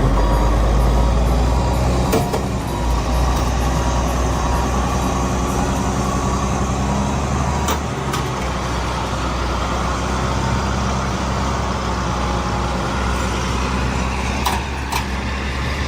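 Heavy vehicle engine running steadily, a deep rumble with a few sharp knocks or clanks.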